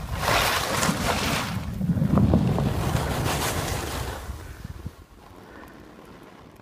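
Wind rushing and buffeting a phone's microphone during a ski descent, mixed with the hiss of skis on snow. The noise dies down to a faint hush about five seconds in.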